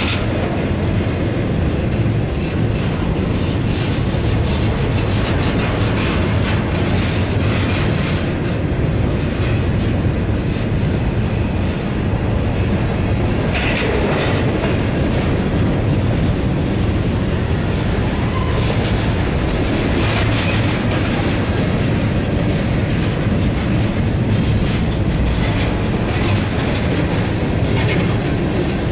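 Freight train cars rolling past at close range: a steady loud rumble with irregular wheel clacks over the rails.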